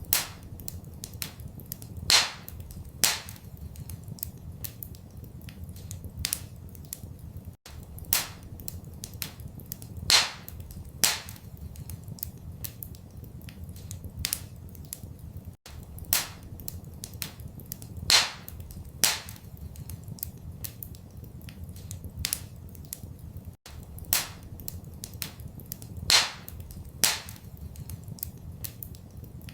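Wood fire crackling in a fireplace: a steady patter of small snaps with a few louder pops, over a low steady rumble. The recording loops, repeating the same pattern of pops about every eight seconds with a brief dropout at each seam.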